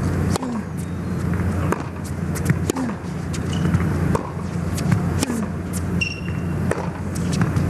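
Tennis rally on a hard court: sharp racquet strikes and ball bounces about once a second over a steady arena hum.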